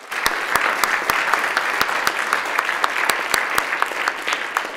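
Applause from a roomful of people, with many sharp individual claps from someone close by standing out above the general clapping. It begins abruptly and starts to thin near the end.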